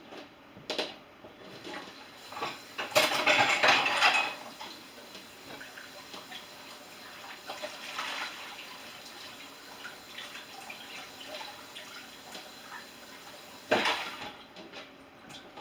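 Dishes and cutlery clinking and knocking as they are loaded into a dishwasher. Water runs briefly from the kitchen tap about three seconds in, and there is a sharper knock near the end.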